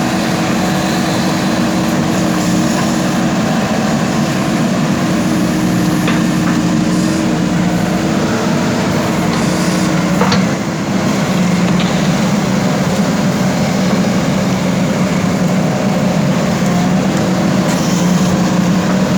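JCB backhoe loader's diesel engine running steadily at working revs, with a brief sharp knock about halfway through.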